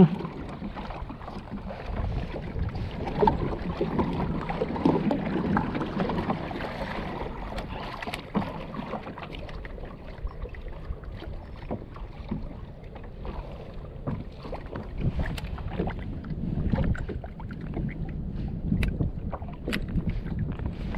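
Wind buffeting the microphone and small waves slapping against a kayak hull, rising and falling unevenly, with a few sharp clicks in the second half.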